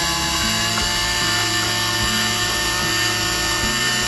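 Electric apple peeler running empty, its small motor making a steady whir with no apple on the prongs.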